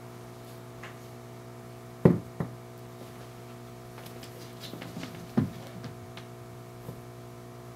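Two cats scuffling: a pair of sharp knocks about two seconds in and another about five and a half seconds in, with faint ticks and rustles between them, over a steady electrical hum.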